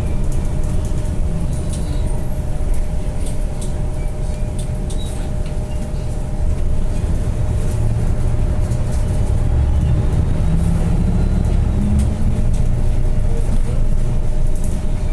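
Diesel bus engine running with a steady low rumble and a faint constant hum, with scattered small rattles and clicks.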